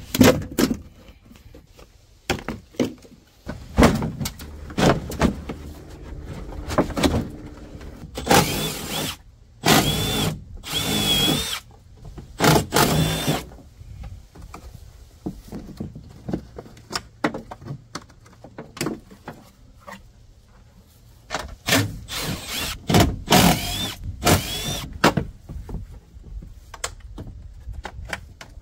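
Power drill/driver running in short repeated bursts as fasteners are backed out, with a thin whine in each burst. Knocks and clatter of loose parts come between the bursts.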